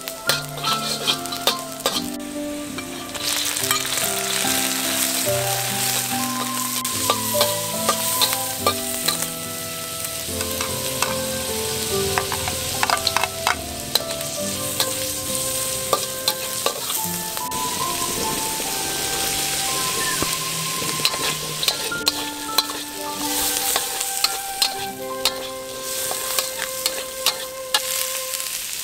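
Garlic, shrimp, carrots and string beans sizzling as they are stir-fried in oil in a wok, with a metal spatula scraping and clicking against the pan. The sizzle gets louder about three seconds in. Soft background music with a slow melody plays under it.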